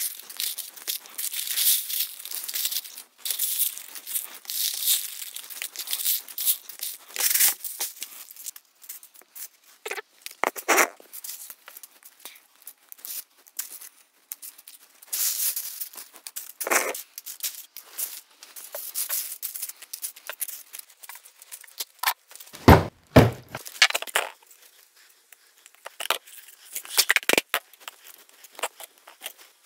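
Dried, brittle autumn leaves crackling and rustling as hands lift them out of silica gel beads and handle them. Dense for the first several seconds, then in irregular bursts, with a few low knocks a little past two-thirds of the way through.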